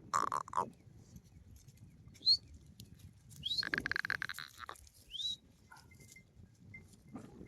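Goat bleating: a short bleat at the start, then a longer, wavering bleat about three and a half seconds in. A few brief, high rising chirps sound around the second bleat.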